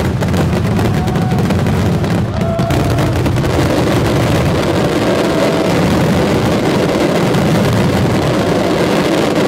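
Fireworks in a continuous closing barrage: so many bursts that the bangs and crackling merge into one unbroken din, with a few short whistles rising through it.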